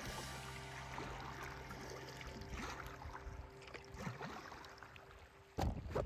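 Kayak being paddled through shallow water, with water lapping and paddle strokes. A sudden, much louder rush of water noise comes in near the end.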